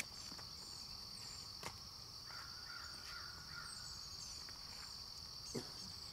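Steady high-pitched drone of an insect chorus, with a few faint bird calls over it about two to four seconds in.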